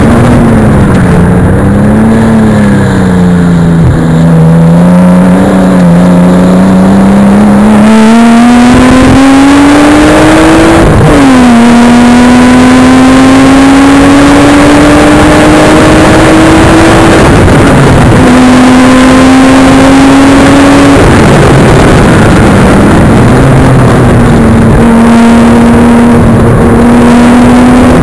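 Nissan Skyline turbocharged straight-six engine at full throttle on track, the revs climbing and then dropping sharply with upshifts about 11 and 17 seconds in. It eases off for a few seconds past the 20-second mark and picks up again near the end, all over a loud, steady rush of wind and road noise.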